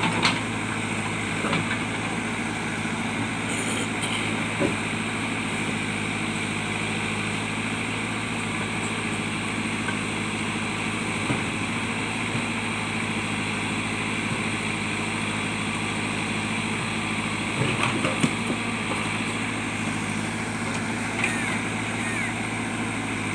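JCB digger's diesel engine running at a steady speed, with a few short knocks and clanks, a small cluster of them near the end.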